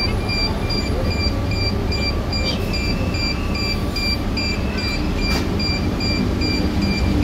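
Electronic door warning beeper at a BRT bus stop, sounding short high beeps, a little over two a second, that repeat evenly throughout. Under it runs a steady low vehicle rumble, and a lower steady hum joins about five seconds in.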